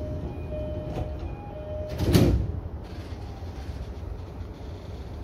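Door-closing sequence of a JR E233-series commuter train: a short chime tone repeats for the first couple of seconds, then the sliding doors shut with a loud thud and rush of noise about two seconds in, over the low hum of the standing train.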